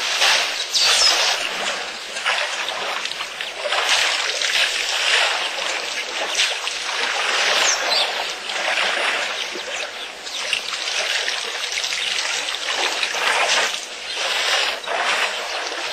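Elephants wading and splashing in shallow muddy water, a continuous irregular sloshing and trickling of water.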